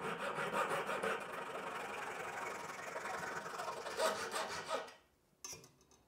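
Fine-toothed hand saw cutting through the shaft end of a Wittner Finetune violin peg in quick back-and-forth strokes, stopping about five seconds in.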